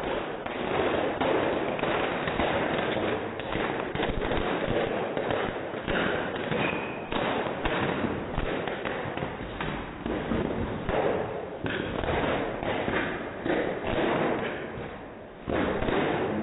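Bubble wrap being popped by stamping feet: a dense, continuous crackle of many small pops in quick succession, easing briefly near the end.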